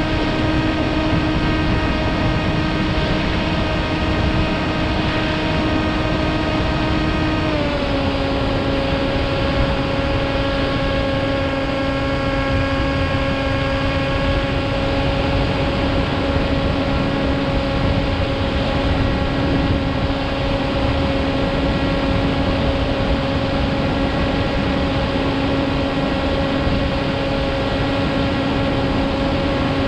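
Motor and propeller of a radio-controlled model airplane running steadily, with wind rush. The pitch steps down slightly about seven seconds in and then holds steady.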